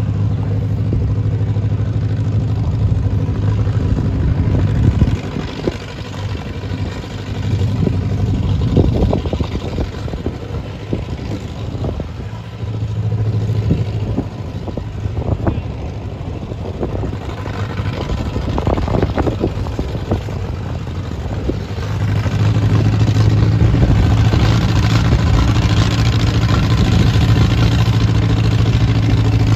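Antique farm tractor engine running at the start of a pull, idling unevenly with a few clanks, then revved up and held at higher speed about two-thirds of the way through.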